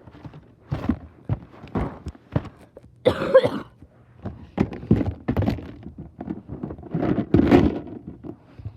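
Rummaging under a bed: a string of irregular thunks, knocks and rustles as objects are shoved aside and a box is dragged out.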